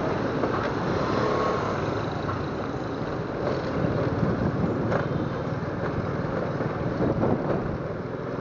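Motorcycle riding through city traffic: the engine runs under steady road and wind noise on the microphone, with a few short knocks.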